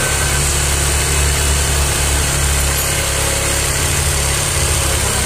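Yamaha Aerox 155's single-cylinder four-stroke engine idling steadily, running very smoothly with no rough rattle, while it warms up with the radiator being filled and bled.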